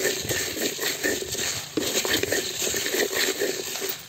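Coriander seeds and dried red chillies rattling and scraping against a clay pot as they are stirred while roasting, a dense run of small clicks.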